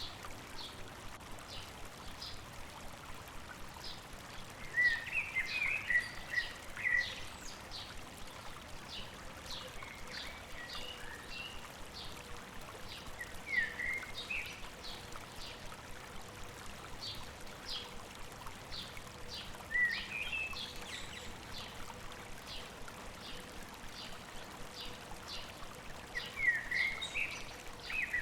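A river or stream flowing with a steady rush, while birds sing over it: a run of short high chirps at a few per second, broken now and then by louder warbling phrases.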